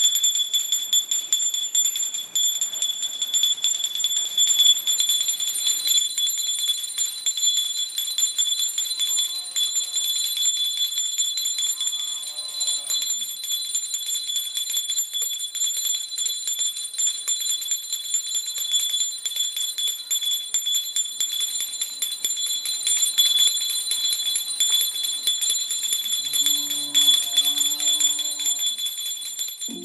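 Brass puja hand bell rung continuously and fast during aarti, a steady bright ringing. Faint voices come in briefly twice.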